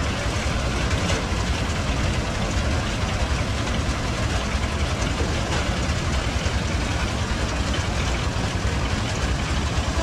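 Rice threshing machine running steadily, powered by a two-wheel walking tractor's engine, as rice sheaves are fed into the drum and straw is blown out. A continuous engine drone with a fast low chugging and the rush of the threshing drum.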